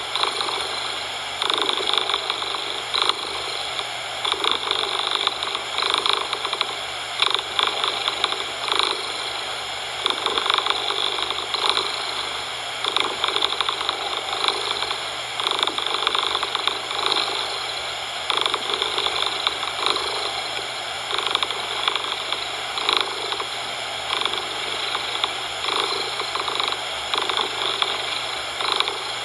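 Cat purring, swelling and fading with each breath about once a second, over a steady hiss of artificial coloured noise.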